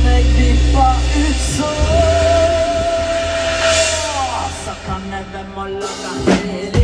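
Live rock band playing loud, with heavy bass and singing. A long held note slides down at its end, and drum hits come near the end.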